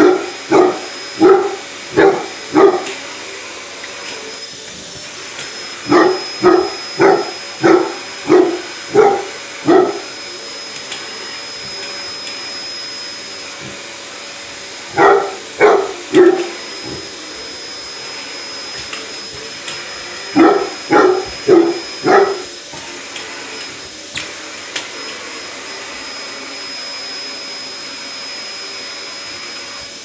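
Basset hound barking at a running vacuum cleaner in quick runs of three to seven loud barks, with pauses of several seconds between the runs. Underneath, the vacuum cleaner runs steadily with a high whine.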